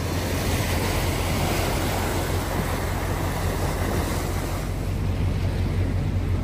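Truck engine idling with a steady low hum, under a constant rush of wind noise on the microphone.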